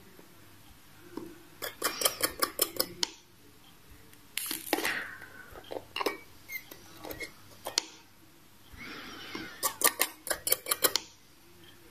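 Two runs of quick, sharp clicks and clinks, the second near the end, with a short scrape between: ceramic tweezers pinching and tapping the coils of a rebuildable dripping atomizer while the coils are dry-fired red-hot to break them in.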